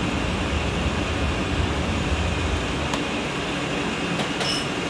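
Steady rumbling background noise of a commercial kitchen's stove and ventilation, the low rumble easing about three seconds in, with a couple of faint clicks near the end.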